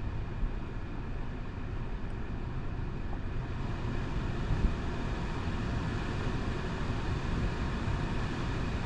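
Portable air conditioner running at its second fan speed: a steady rush of air and motor hum with a faint whine, growing slightly louder toward the end.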